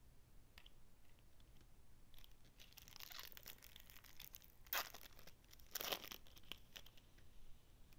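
Foil trading-card pack wrapper crinkling and being torn open, with two sharp rips about a second apart partway through.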